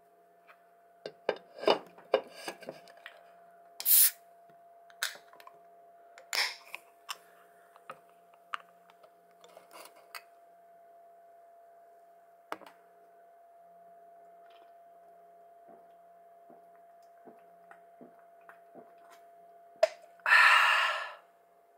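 An aluminium can of Taiwan Beer lager being handled, with clicks, taps and scrapes, including a louder short rasp about 4 s in and again a couple of seconds later. Near the end the pull tab cracks open with a sharp click and the can lets out a hiss of about a second.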